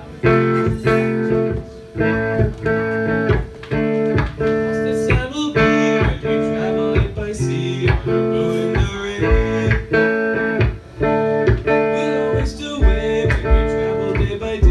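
Live rock band playing: electric guitars strumming chords in a repeating pattern over bass and drums.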